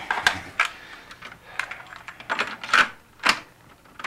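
A string of irregular sharp clicks and knocks from something being handled by hand, the loudest two close together about three seconds in.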